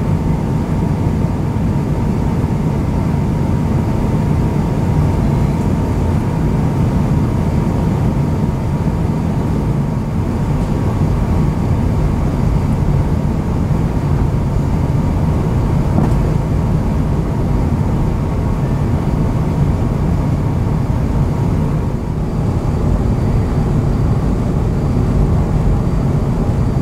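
Steady cabin noise inside an Airbus A350-900 descending to land: a low rumble of engines and airflow, with a faint steady high tone that fades out about halfway through.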